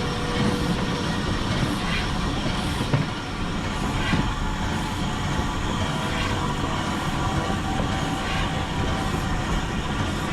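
Railway carriage running along the track: a steady rumble of wheels on rail, with the clickety-clack of wheels crossing rail joints every second or so.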